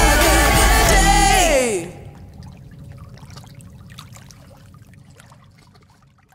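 A pop song with a singer ends abruptly about two seconds in. After it, faint water sounds and outdoor ambience fade slowly away.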